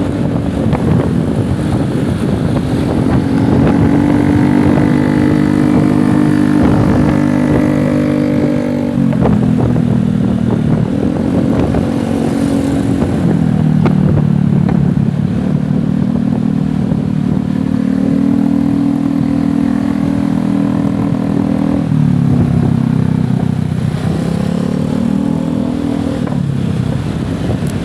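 Motorcycle engine running under way, its pitch holding steady, then dropping and climbing again a few times as the bike slows and speeds up.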